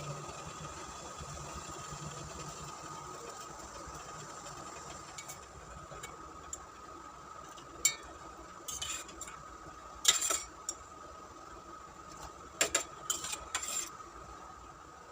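Metal kitchen utensils clinking and clattering against a pot several times in the second half, over a steady hum with a faint high whine.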